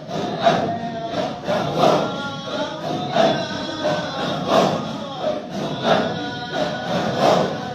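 A group of men chanting dhikr together, many voices in unison with a strong rhythmic pulse about every second and a third.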